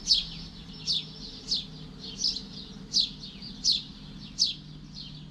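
A small songbird calling over and over: a short, high chirp that slides downward in pitch, repeated at a steady pace of about one every 0.7 seconds. A faint steady low hum sits underneath.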